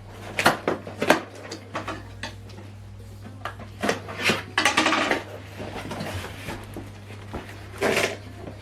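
Packaging being handled during an unboxing: scattered clicks and knocks, with a stretch of rustling or scraping about halfway through, over a steady low hum.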